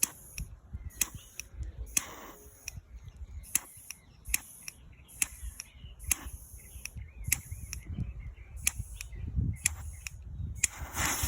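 A handheld lighter being clicked over and over, a sharp click roughly every half second to second, with a low rumble underneath.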